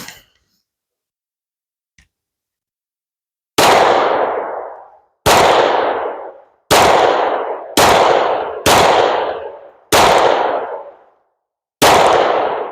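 Seven 9mm pistol shots from a Glock 34 Gen5, fired at a steady slow pace about one to two seconds apart. Each shot is a sharp crack that rings out over about a second.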